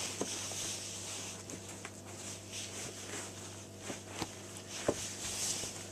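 Faint rustling of shoelaces and a sneaker upper as an Air Jordan 7 is loosened and pulled off a foot, with a few light clicks and taps.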